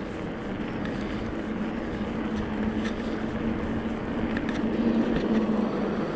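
Electric mountain bike on the move: a steady rush of riding noise with a low hum that swells slightly partway through, and scattered light clicks and rattles.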